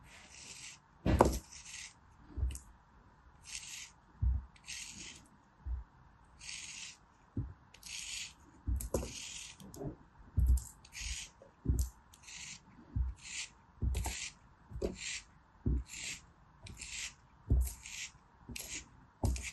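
Thin metal blade slicing through a molded block of kinetic sand, about twenty short crunchy scraping strokes at roughly one a second, each with a soft low thud.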